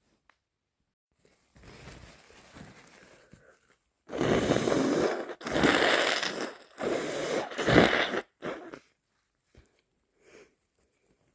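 A person with a snotty head cold blowing their nose hard three times in a row, each blow about a second long, with a short fourth puff after. A softer, longer snuffle comes before the blows.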